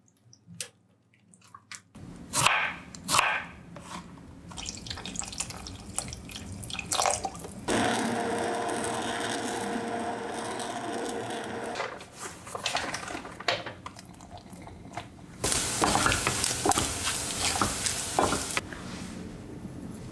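A run of kitchen sounds. First come a few sharp knocks. Then an immersion blender runs in a pot of soup for about four seconds, a steady whir that starts and stops abruptly, and near the end there is a steady hiss with crackles for about three seconds.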